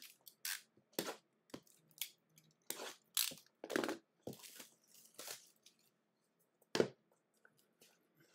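Plastic shrink-wrap being picked at, torn and crinkled off a sealed trading-card hobby box, in a string of short rustling, tearing bursts with one louder crackle about seven seconds in.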